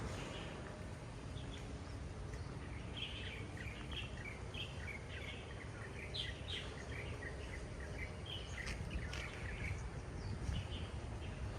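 Small birds chirping in quick short calls, busiest through the middle, over a steady low rumble of outdoor background noise.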